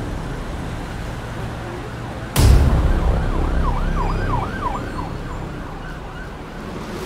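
Low street rumble; about two and a half seconds in, a sudden loud burst of noise, then an emergency-vehicle siren yelping rapidly up and down, about three sweeps a second, fading out near the end.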